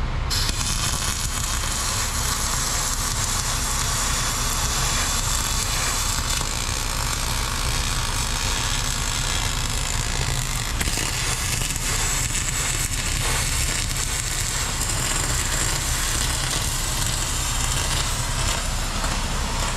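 Arc welding on aluminium bulwark side plating: the welding arc sizzling steadily, with no break.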